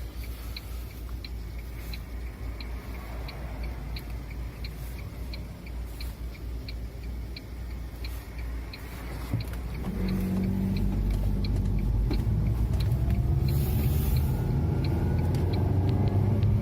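Lada Vesta heard from inside the cabin: engine running at low revs with a light ticking about three times a second, then about ten seconds in the car pulls away and the engine note rises as it speeds up.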